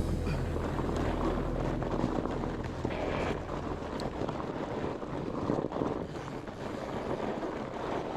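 Wind buffeting a bike-mounted action camera's microphone over the rumble of fat-bike tyres rolling along a dirt trail, with a few faint clicks and rattles.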